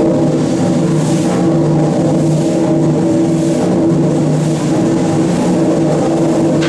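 The River Don Engine, a huge three-cylinder reversing steam engine, running steadily. Its rhythmic beat and hiss repeat about once a second over a steady mechanical hum.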